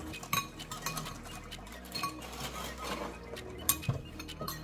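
Metal spoons clinking and scraping against glass bowls as several people eat cereal quickly: irregular, rapid clinks, with a sharper knock a little before the end.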